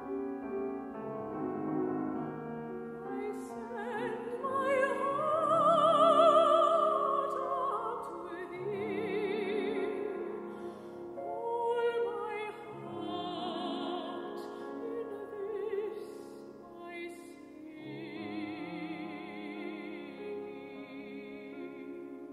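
A soprano singing an art song with vibrato over grand piano accompaniment. The piano plays alone at first and the voice comes in about three seconds in. It rises to its loudest on a held high note a few seconds later and ends on a long held note as the music grows quieter.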